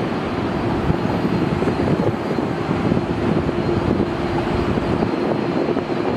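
Rolls-Royce Trent XWB turbofan engines of an Airbus A350 at takeoff thrust as it climbs away: steady jet noise with a held humming tone underneath.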